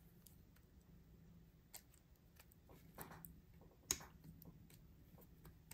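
Near silence with a few faint, scattered clicks and ticks from small parts being handled as a model steam locomotive's wheels and chassis are fitted together. The sharpest click comes about four seconds in.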